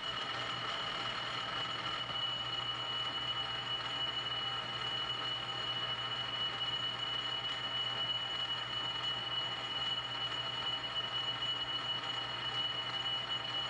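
South Bend lathe running under power feed for thread cutting, its change-gear train with the sliding gear engaged making a steady racket with a high whine over a lower hum. The noise comes from that sliding gear being meshed for this feed and thread-pitch combination.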